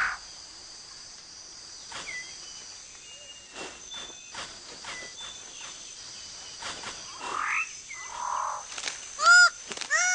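Rainforest birds calling: scattered short calls and rising whistles over quiet forest ambience with steady high tones. About a second before the end comes a loud run of rapidly repeated calls, about four in a second.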